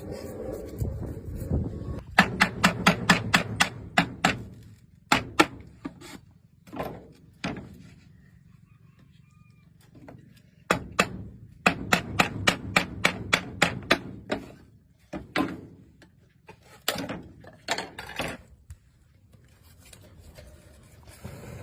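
Knife chopping on a cutting board: two fast runs of strokes, about five a second, with single chops between them.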